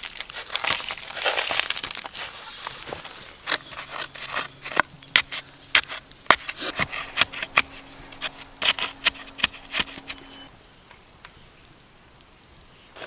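Gritty, gravelly soil scraped and crunched around the base of a wooden post as its hole is backfilled and packed, first as a scraping rustle, then as a run of sharp crunching knocks that stops about ten seconds in. A faint low hum sits underneath during the knocks.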